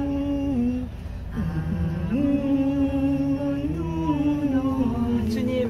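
Women's voices singing a slow hymn-like chant in long held notes, the melody stepping up and down gently with no clear words.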